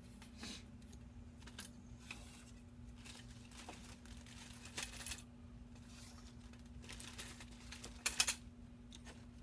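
Plastic parts bag crinkling and small printed parts clicking as they are handled, in several short spells with the loudest near the end, over a steady low hum.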